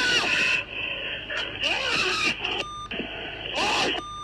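Dash-camera audio of a man shouting commands at a police dog that is biting a suspect, with two short censor bleeps, one about two and a half seconds in and one at the end.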